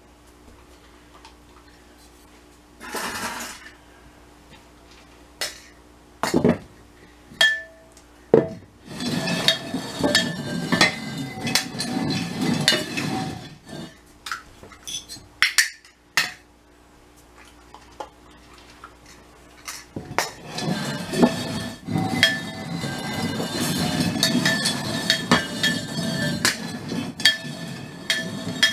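Upturned terracotta flower pots clinking, knocking and scraping on the floor as they are shuffled by hand to hide a treat. A few single knocks come first, then a run of rapid clattering about nine seconds in, and another from about twenty seconds in until near the end.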